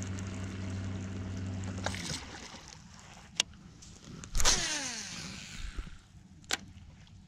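Electric trolling motor humming steadily, then switched off about two seconds in. About four seconds in a cast is made: a sharp whoosh and then a whir from the fishing reel that falls in pitch over about a second as the spool spins down. Single clicks come before and after the cast.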